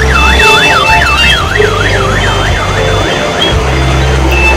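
Electronic siren wail, rising and falling quickly about two and a half times a second, over loud music with a heavy bass line. The siren stops about three and a half seconds in, and the music carries on.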